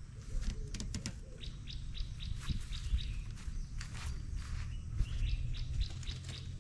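Small birds chirping over and over, with short high calls following each other quickly, over a low steady rumble. A few sharp clicks come near the start.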